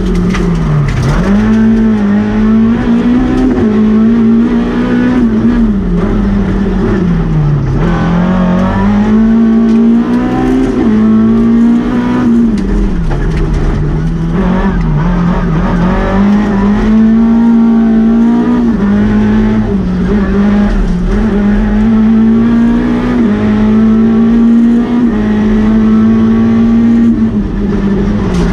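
Lada VFTS rally car's four-cylinder engine at full stage pace, heard from inside the cabin. It revs hard and holds high, then its pitch drops sharply and climbs again every few seconds, over and over.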